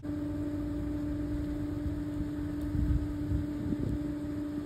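A motor engine running steadily: a constant mid-pitched hum with a low rumble beneath it.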